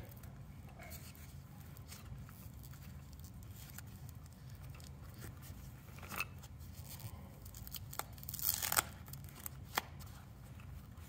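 Protective tape being peeled by hand off a metal lightsaber hilt's leather-bound grip: faint rustling and a few small clicks, with one louder, short ripping burst about three-quarters of the way in.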